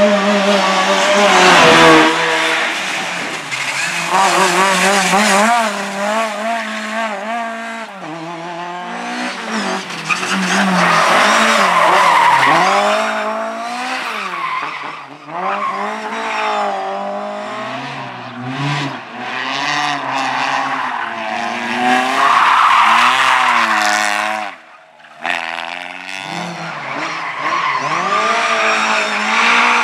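A competition car's engine revving hard, its pitch rising and falling again and again as the driver works the throttle, with tyres squealing and skidding. The sound drops away briefly about five seconds before the end, then picks up again.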